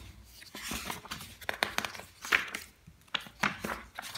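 Paper pages of a bound record book being handled and turned: irregular rustling and crackling of paper.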